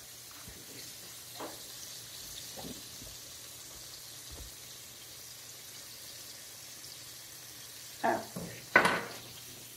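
Sliced mushrooms simmering in melted butter and the juice they have given off, a steady faint sizzle and bubbling in a stovetop pot. Two sharp knocks near the end.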